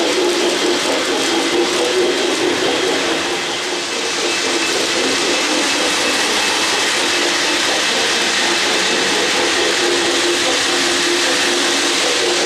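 O-gauge model trains running on three-rail track: a steady rolling rumble and whir of wheels and locomotive motors, with a slight dip in level about four seconds in.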